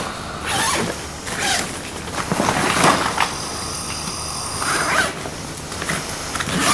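Zips on bags being pulled open and shut, a run of short rasping strokes, with rustling as the bags are rummaged through.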